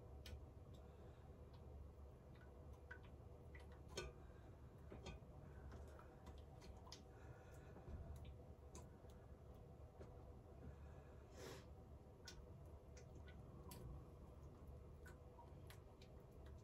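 Near silence: a faint steady low hum with scattered light clicks and scrapes of a stirrer against a pot as butter melts in it.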